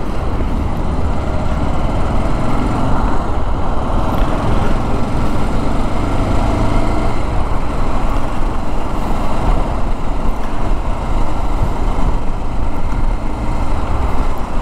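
Motorcycle riding and gathering speed through city traffic: a steady rumble of wind on the microphone, engine and road noise.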